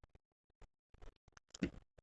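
Close-miked chewing of food: a run of short wet mouth clicks and smacks that starts about a second in after a nearly silent pause.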